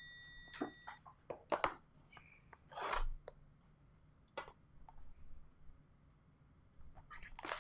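Trading cards and their foil pack wrappers being handled: a string of short sliding, scraping and crinkling sounds, with a bell-like chime ringing out during the first second.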